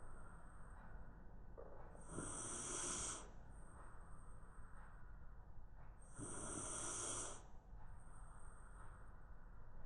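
Shiba Inu snoring in its sleep, slow and regular. There is a louder snoring breath about two seconds in and again about six seconds in, with softer breaths between.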